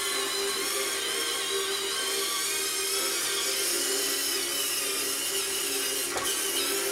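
Small electric drive motors and gearboxes of a radio-controlled International 1486 model tractor whining steadily as it drives over dirt. The pitch drops slightly about halfway through as the tractor climbs a mound.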